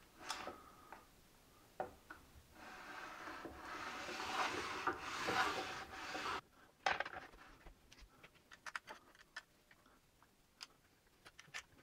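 Incra Miter Express table saw sled sliding on the cast-iron saw top with its aluminum miter bars running in the miter slots: a rubbing, scraping sound for a few seconds, as it is pushed through to check the fit after adjusting the bars. It stops abruptly, and scattered light clicks and taps from handling the parts follow.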